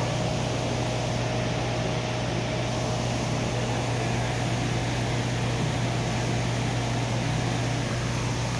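Steady mechanical hum with a strong low drone, a faint high steady tone and an even rushing hiss, like building ventilation or an enclosure's pump running.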